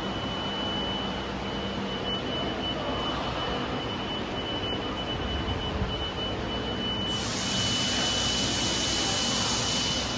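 Steady running noise of factory machinery with a constant high-pitched whine. About seven seconds in, a loud hiss joins and then cuts off suddenly.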